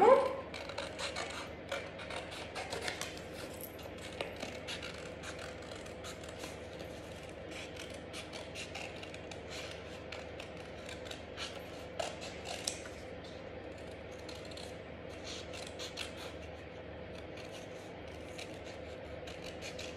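Scissors snipping through red cardstock in short, crisp cuts, thick and fast for the first few seconds, then sparser with pauses between.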